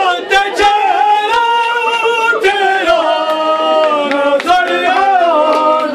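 A noha, a Shia mourning lament, sung unaccompanied in long, held, wavering lines.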